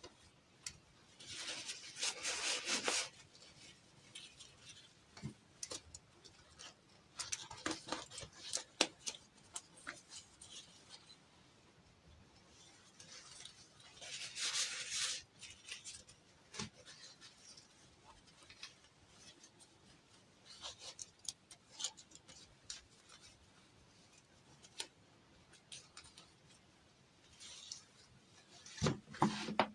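Small handling noises from hands working with craft or packaging materials: two longer rubbing, rustling scrapes, one about two seconds in and one about halfway through, with scattered light clicks and taps between them.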